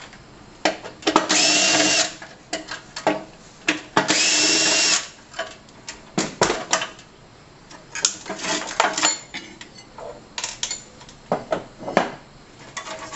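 Power drill-driver running in two runs of about a second each, backing out the screws that hold the old ballast in a sheet-metal street-light fixture, its pitch rising as each run starts. Between and after the runs come sharp clicks and knocks of metal parts being handled.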